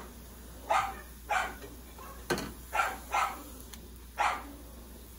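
Dogs barking repeatedly: a string of about six short barks, spaced half a second to a second apart.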